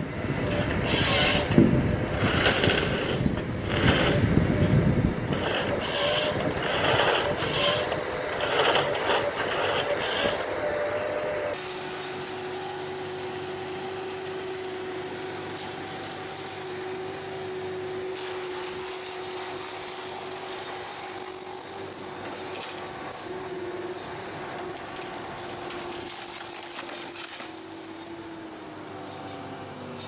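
Heavy forestry machinery: for about the first eleven seconds, a tracked harvester's head knocking and clattering as it handles and cuts logs over the engine's drone. Then, after an abrupt change, the steadier, quieter drone of an excavator's engine and hydraulics as its tree shear works a trunk, with a tone that falls in pitch near the end.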